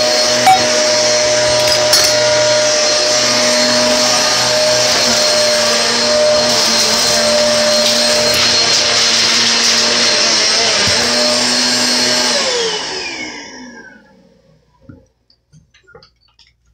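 Household electric motor appliance running loud and steady, then switched off and winding down with a falling whine about three quarters of the way in, leaving a few light knocks.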